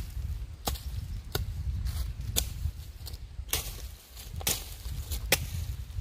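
Machete chopping at brush and ground: a string of sharp strikes, roughly one or two a second and irregularly spaced, over a steady low rumble.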